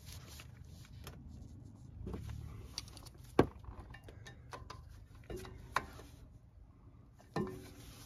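Scattered metallic clicks and light scraping of a small screwdriver levering between a front brake pad and the caliper, easing the pistons back. One sharp click about three and a half seconds in is the loudest.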